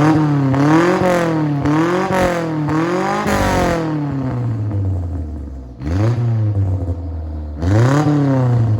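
Toyota Corolla ute's engine revved through a newly fitted truck-stack exhaust, loud. A run of quick blips comes in the first few seconds, then two separate revs, the last near the end.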